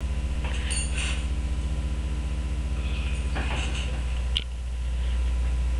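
Steady low electrical hum picked up by a webcam microphone, pulsing rapidly for the first four seconds, with faint rustling and a sharp click about four and a half seconds in.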